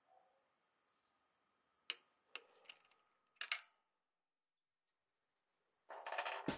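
A few sharp clicks from a wrench tightening the gearbox filler plug, the last a quick double click. Near the end there is a brief, louder burst of noise.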